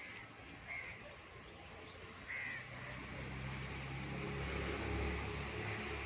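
A crow cawing, two short calls in the first half, over faint outdoor background noise. A low rumble builds from about halfway through.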